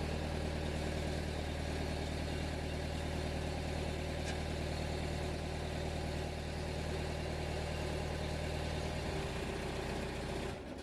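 Waldon 4500 loader's engine idling steadily, then shut off, cutting out suddenly near the end.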